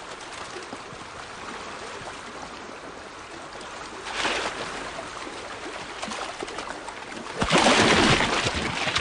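River water running, with loud splashing about four seconds in and again, louder and for over a second, near the end, as gazelles plunge and swim through the river.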